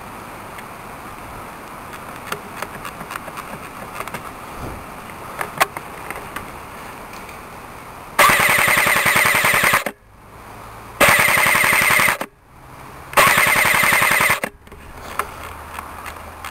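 ICS M4 airsoft electric gun (AEG) firing three full-auto bursts in the second half, each a second or more of fast, even rattling; the first is the longest.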